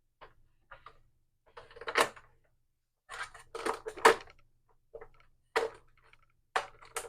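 PlayStation 4's plastic housing panel being slid back on and fitted, a string of short plastic clicks and knocks with the loudest cluster around the middle.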